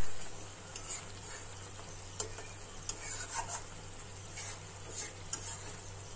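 A spatula stirring a thick fish curry in a nonstick wok, with light scrapes and taps against the pan every second or so over a faint sizzle. A sharp knock right at the start is the loudest sound.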